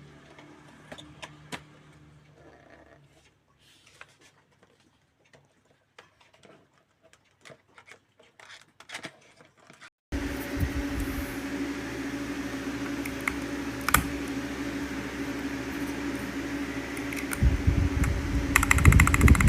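Mechanical keyboard switches (Akko V3) being pressed. It starts with a few scattered single key clicks. About halfway through, a louder steady hum sets in with occasional clicks, and rapid typing begins near the end.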